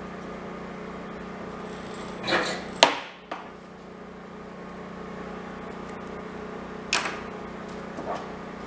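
Workshop knocks from hand work on metal parts: a short scrape, then a sharp knock about three seconds in with a lighter one just after, and another knock near the end, over a steady low hum.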